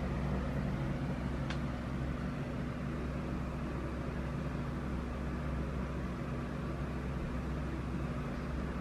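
Steady low hum under an even hiss, with a faint tick about a second and a half in.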